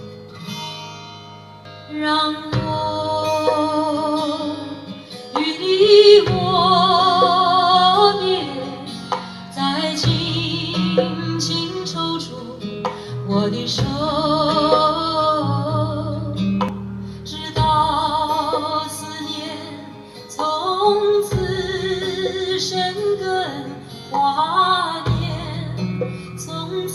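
A song with female singing and guitar, played through tabletop Bluetooth speakers, the Edifier QD35 and the Vifa Helsinki taking turns, for a side-by-side sound comparison.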